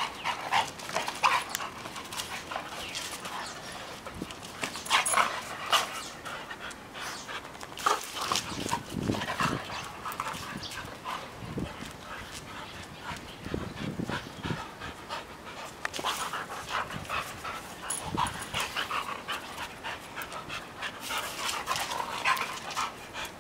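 Two dogs, a Siberian husky and a brown short-haired dog, play-fighting: heavy panting mixed with irregular scuffles of paws and bodies on concrete.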